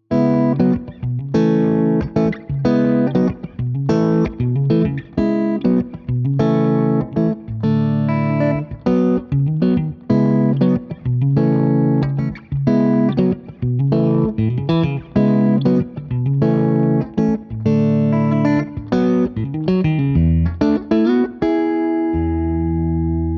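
Yamaha Pacifica Professional PACP12 electric guitar played clean through its neck and middle Reflectone pickups together: a rhythmic run of picked chords and single notes, ending on a chord left ringing near the end.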